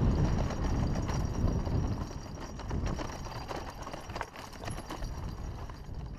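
Haro hardtail mountain bike rolling downhill over a rough dirt trail, rattling with irregular clicks and knocks from the frame and drivetrain. Wind rushes on the mounted microphone at first and eases after a second or two.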